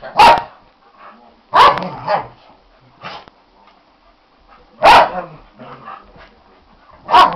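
Norwegian Elkhounds barking in play: about six sharp barks at uneven intervals.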